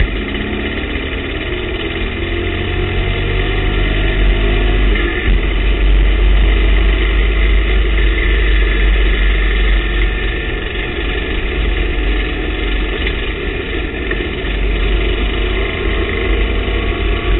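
TVR Tuscan race car's engine pulling hard at racing speed, heard from inside the cockpit: the revs climb over the first few seconds, then it holds a loud, steady drone with a heavy low rumble.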